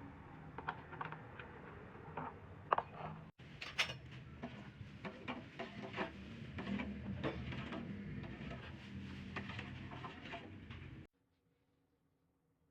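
Kitchen handling noises: irregular light clicks and knocks of utensils and cookware over a steady low background hum. There is a brief break about three seconds in, and the sound cuts off suddenly near the end.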